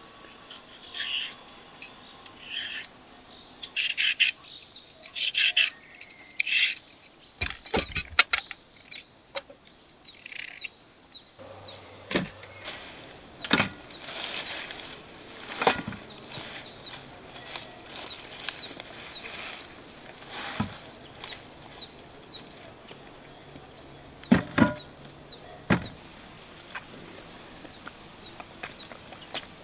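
Hand-held vegetable peeler scraping down carrots in quick repeated strokes, over steady chirping of small birds. After about eleven seconds the scraping stops, and a few light knocks and rustles of handled leaves go on under the chirping.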